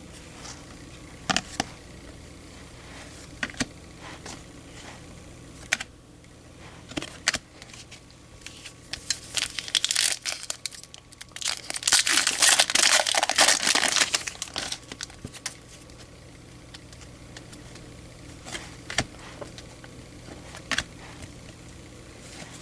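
Baseball card pack wrapper being crinkled and torn open, the crinkling loudest in two stretches around the middle, with scattered light clicks and taps before and after.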